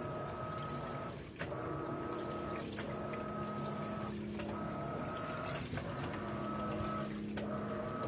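Electrolux LAI17 17 kg top-load washing machine agitating a load in a normal (non-turbo) wash: a steady motor whine that breaks off briefly about every second and a half as the agitator changes direction, with water sloshing through the laundry.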